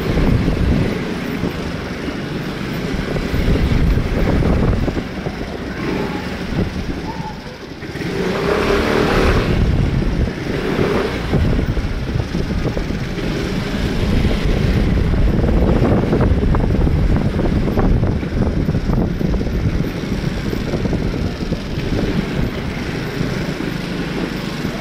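Road traffic: a steady mix of car and motorcycle engines running and passing, the level rising and falling as vehicles go by.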